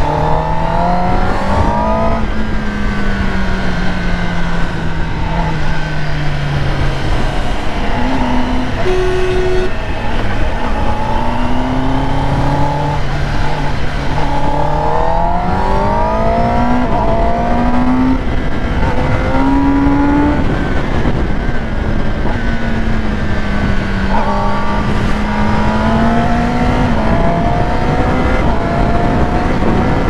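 Kawasaki Ninja ZX-10R's inline-four engine running under way, its pitch climbing and dropping again and again with throttle and gear changes, over a steady rush of wind noise.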